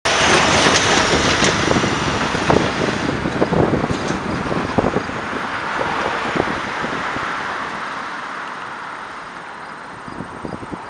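Road traffic passing, loudest at the start and fading steadily as the vehicles move off, with wind noise on the microphone.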